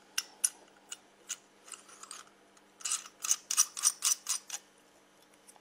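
Sharp clicks and light clinks of a backing nut being screwed onto a beer shank, irregular at first, then a quick run of clicks in the middle before it goes quiet.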